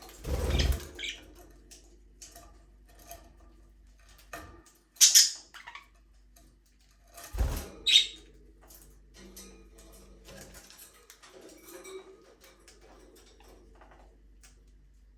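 Budgerigars in an aviary: two sharp, high chirps about five and eight seconds in, over scattered soft clicks and scratches. Two short low thumps, one near the start and one about seven seconds in.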